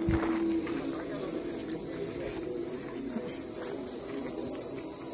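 Insects shrilling in a steady high-pitched chorus that grows louder about four and a half seconds in, with a brief low bump at the very start.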